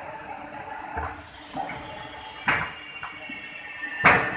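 Pneumatic flatbed screen printing machine cycling: two sharp hissing bursts of air from its cylinders, about a second and a half apart, with smaller bursts before them, over a steady machine noise.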